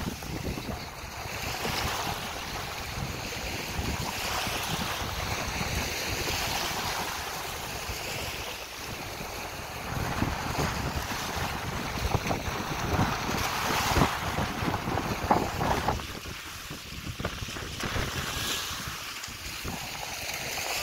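Wind buffeting the microphone over shallow sea water washing and lapping, with a few short splashes about two-thirds of the way through.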